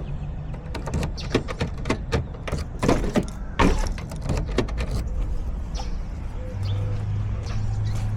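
A run of irregular sharp clicks and knocks over a steady low rumble, with a steady low hum coming in near the end.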